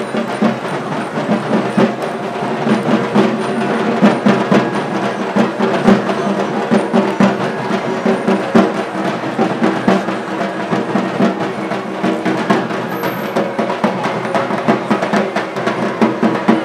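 Percussion-led music with a dense, fast run of drum beats.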